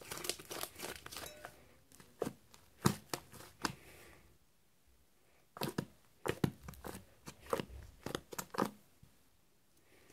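Pink fluffy slime made from glue and shaving foam being stretched and squeezed by hand, giving sticky crackles and pops. They come in two flurries: one at the start, then a pause of about a second and a half, then a second flurry that stops about a second before the end.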